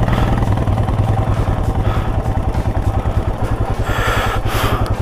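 Motorcycle engine running steadily with a rapid, even pulsing beat. A brief rushing noise rises over it about four seconds in.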